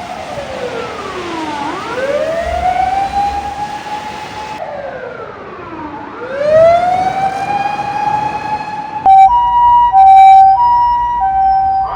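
Emergency vehicle siren wailing, twice dropping slowly in pitch and sweeping back up. About nine seconds in it gives way abruptly to a Japanese ambulance's two-tone hi-lo "pee-po" siren, alternating between two steady pitches.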